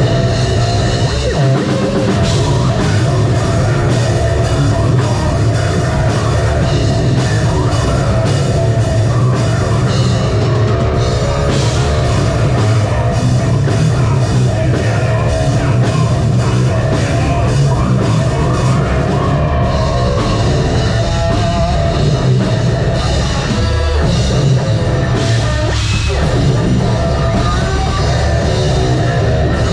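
A live metalcore band playing loud: distorted guitars, heavy bass and a pounding drum kit.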